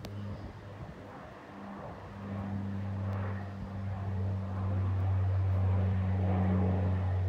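A low, steady engine drone that grows gradually louder.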